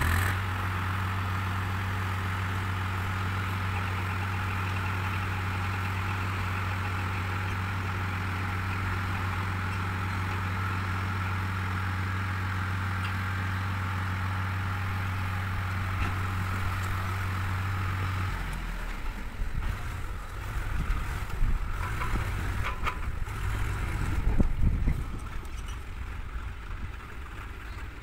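Tractor engine running steadily while the hydraulic tipping trailer lifts its load of clay soil and rocks. About 18 seconds in, the steady engine note drops away and the load slides out with irregular rumbling and knocks.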